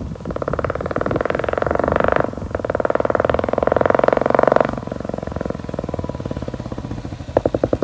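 Royal Enfield Classic 350 BS6's single-cylinder engine running through a K-Indori aftermarket silencer, loud: it is revved and held twice, then drops back to a slow idle thump near the end.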